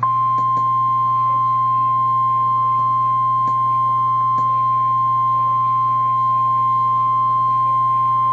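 NOAA Weather Radio 1050 Hz warning alarm tone: one steady, unbroken high beep from a weather radio. It marks that a warning follows, here a severe thunderstorm warning. A low electrical hum from the radio runs underneath.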